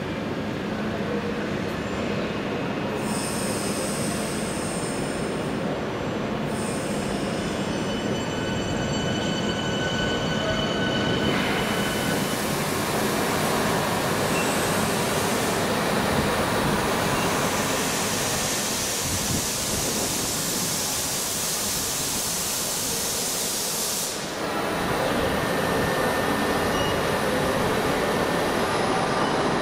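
Merchant Navy class steam locomotive 35028 Clan Line standing with its train, letting off steam: a strong hiss starts about eleven seconds in and cuts off suddenly about twenty-four seconds in. Thin high-pitched tones come and go before the hiss starts.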